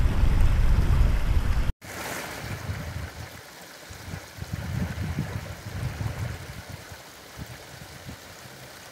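Wind rumbling on the microphone, cut off suddenly about two seconds in. Then a small mountain stream trickling over rocks, with occasional low gusts of wind.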